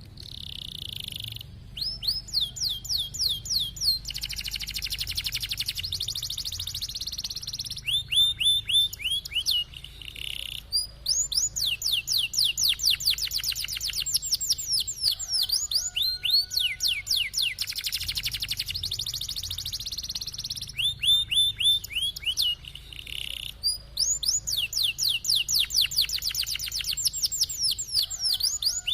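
Domestic canary singing a long, continuous song: runs of rapid, repeated down-sweeping notes alternate with dense rolling trills, with only brief breaks between phrases.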